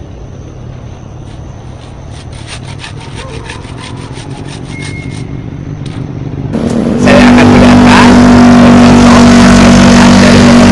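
A hand saw cutting through a soft papaya trunk in quick, rhythmic strokes, faint, for the first six seconds or so. About two-thirds of the way in, a much louder, steady engine-like drone with a low hum takes over.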